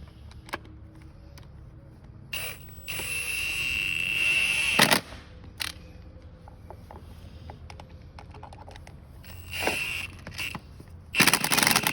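Impact wrench driving anchor bolts: a whirring run of about two seconds that grows louder and cuts off, a brief run near ten seconds in, then rapid hammering near the end as a bolt tightens down, with small clicks of handling between.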